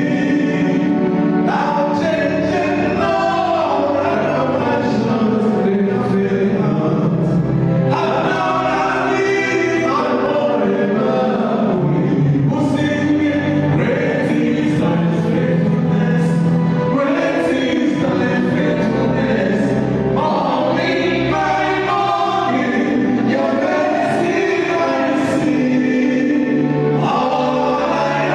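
Gospel music with a choir singing over a steady instrumental backing.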